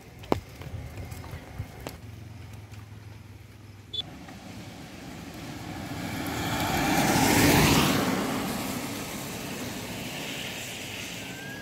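A road vehicle passes by on a wet road, its tyre noise swelling to a peak about seven and a half seconds in and then fading away. Before that there are a few sharp clicks and knocks.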